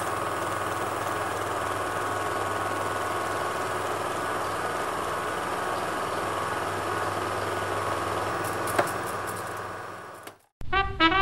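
A steady mechanical running noise with a low hum, fading out about ten seconds in; after a brief gap, brass music starts near the end.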